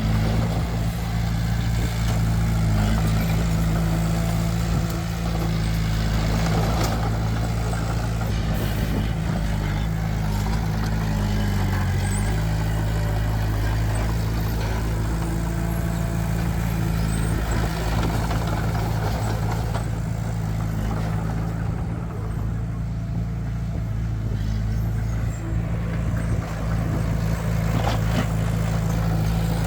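Heavy diesel engine of earthmoving machinery running steadily under work, with its low hum changing pitch briefly about ten seconds in.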